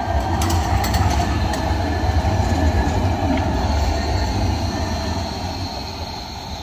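Karlsruhe Stadtbahn light-rail tram passing close by on street track: a low rumble of wheels and motors with a thin high whine above it and a few sharp clicks in the first second or two. The rumble fades about five seconds in as the tram moves away.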